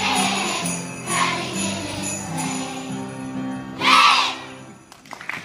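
Children's choir singing a Christmas song over an instrumental accompaniment, with sleigh-bell jingles on the beat. The singers end on one loud final note about four seconds in, and then the music stops.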